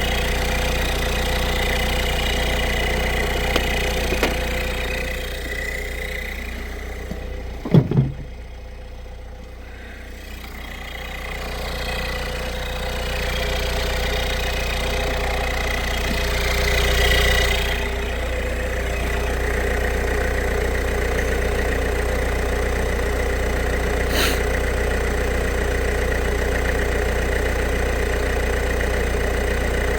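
Peugeot 1.6 HDi four-cylinder turbodiesel idling steadily, now running after its faulty thermostat housing was replaced, while the coolant is bled. A couple of sharp knocks come about eight seconds in, and the engine sound is quieter for a few seconds after them.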